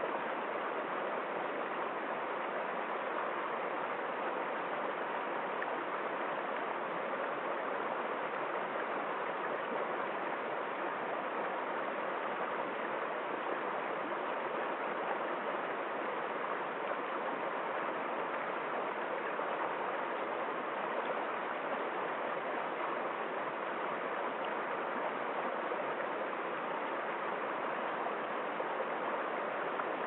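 Shallow rocky stream flowing steadily over stones and small cascades, a constant splashing of water.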